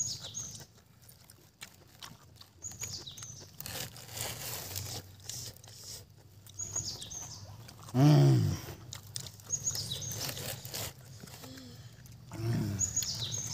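A bird calling over and over, a short high chirp repeated about every three seconds. About eight seconds in comes one brief loud call that falls in pitch, from a voice or an animal.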